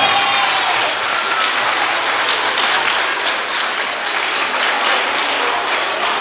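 Audience applauding, with the last of the music dying away at the very start.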